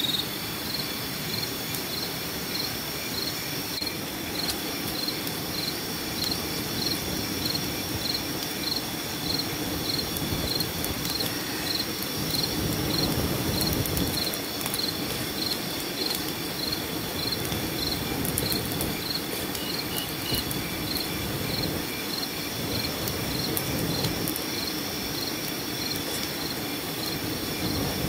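Night insects: a cricket chirping steadily at about two chirps a second over a continuous high insect drone, with faint crackling from a small fire of dry twigs and grass being lit.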